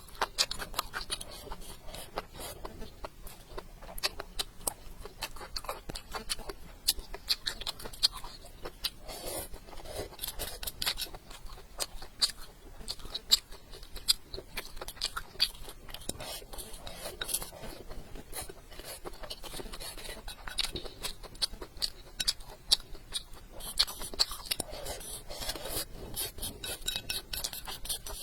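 A person eating close to the microphone: chewing and mouth sounds with many small sharp clicks and smacks, irregular and continuous.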